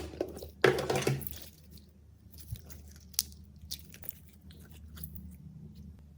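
Slime being worked by hand: a loud crackly squelch about a second in, then scattered faint pops and clicks.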